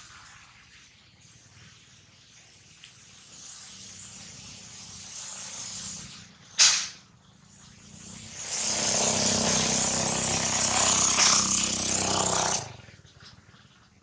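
A single sharp, loud sound about six and a half seconds in, then a motor vehicle engine running loudly and steadily for about four seconds before cutting off suddenly.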